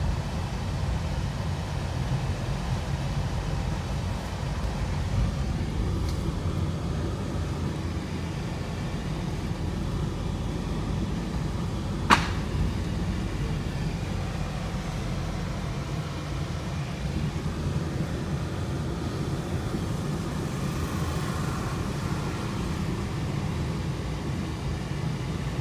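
Car running and moving along the road, heard from inside the cabin: a steady low rumble of engine and tyres. About halfway through there is one sharp click.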